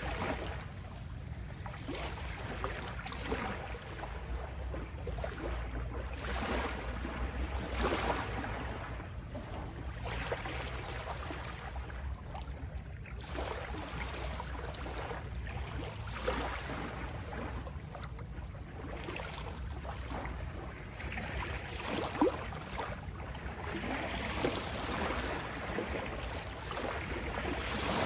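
Small waves lapping and splashing at the shore, washing in irregular swells every second or two over a low rumble.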